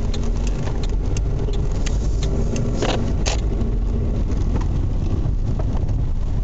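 Car on the move, heard from inside the cabin: a steady low road and engine rumble with scattered sharp knocks, the strongest two close together about three seconds in. These are the knocking from underneath the car that the owner says comes out whenever he brakes; he cannot tell where it comes from.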